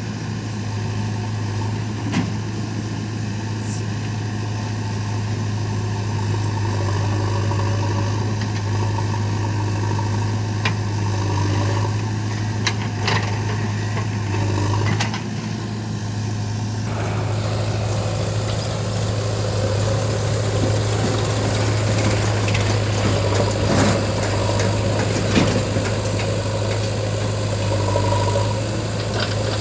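Heavy diesel engine running steadily with a deep, even hum. About halfway through it turns noisier and harsher, with a few short knocks.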